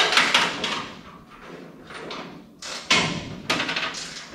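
Metal scraping and clanking as rusted structure in a squarebody truck cab is forced loose by hand, in rough bursts, the loudest at the start and about three seconds in.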